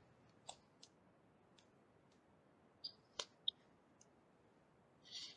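Near silence broken by a few faint, scattered clicks, about seven in all, the sharpest a little over three seconds in, then a brief soft hiss near the end.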